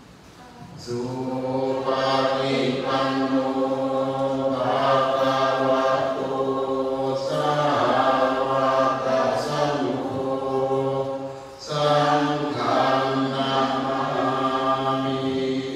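Buddhist chanting: low male voices reciting together in unison on a steady monotone, starting about a second in, with a short pause for breath after about eleven and a half seconds.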